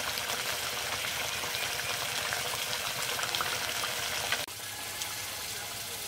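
Coconut-milk curry simmering in a kadai over a wood-fired clay stove: a steady bubbling, sizzling hiss with fine crackles. About four and a half seconds in it cuts off abruptly and goes on as a quieter, steadier hiss.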